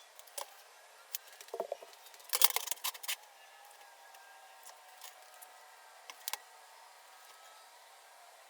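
Metal parts being handled: scattered light clicks, a short clunk, then a brief clatter of hard metal-on-metal rattling about two and a half seconds in.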